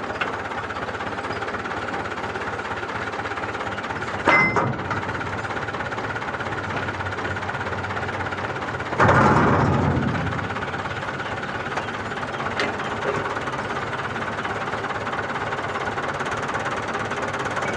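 Tractor diesel engine idling steadily with an even knocking beat. There is a brief louder burst about four seconds in and a louder surge about nine seconds in that dies away over a second.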